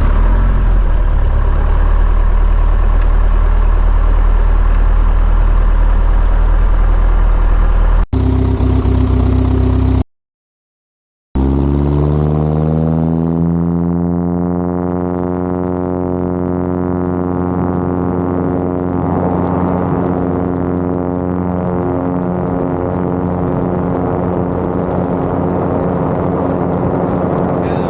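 Light aircraft piston engine and propeller of a 1954 Cessna 170B running steadily just after start-up; after a short break, the engine note rises in pitch over a few seconds and then holds steady.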